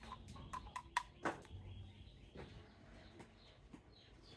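Faint clicks and taps of a plastic toy figure being handled.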